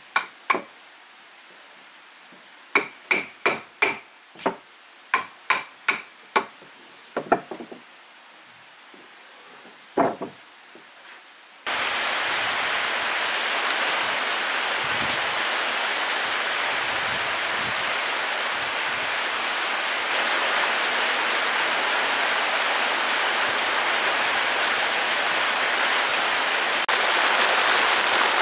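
Hammering on wood: about fifteen sharp, irregular strikes over the first ten seconds. About twelve seconds in, a steady hiss of rain cuts in abruptly and keeps on.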